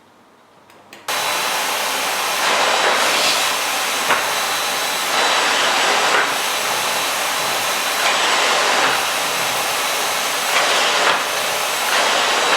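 Miele Classic C1 Ecoline canister vacuum cleaner switching on about a second in and then running steadily at its loop pile carpet setting, its hiss rising and falling every second or so as it is pushed back and forth over carpet.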